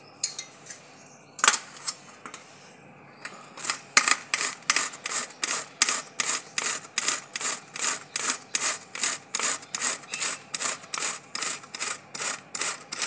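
Cauliflower being grated by hand on a flat metal grater standing in a steel plate: after a few knocks in the first two seconds, steady rasping strokes at about three a second.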